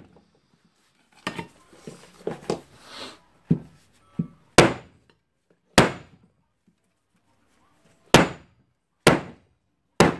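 Makita 9565 angle grinder's motor housing knocked against a wooden workbench to shake the burned field coil loose: softer knocks and rattling at first, then five sharp knocks about a second apart from about halfway.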